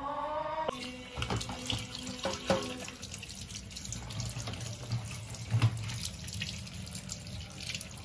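Water running from a tap into a sink, with scattered knocks and clinks of kitchenware.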